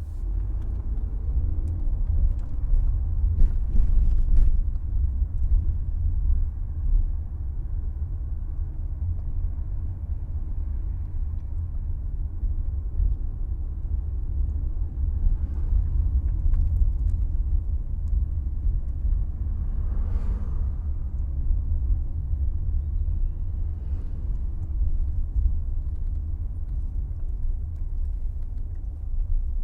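Steady low road rumble of a car being driven, with a few faint knocks a few seconds in and a brief swell of hiss about two-thirds of the way through.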